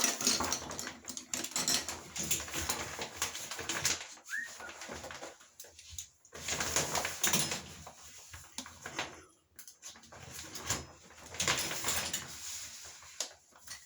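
Shower curtain rings and plastic being handled: irregular clicking and rustling as the rings are hooked onto the rod, with a few short pauses.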